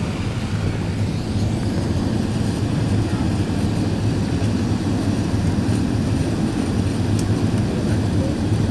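Cabin noise of an Airbus A380 landing, heard from inside the cabin: a steady low rumble from the engines and airflow, then the runway roll, a little louder after the first second or two.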